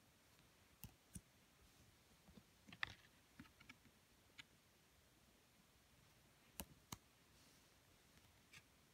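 Faint clicks and taps of tarot cards being handled and slid over one another, scattered through otherwise near silence, with a small cluster about three seconds in and a sharp pair a little before seven seconds.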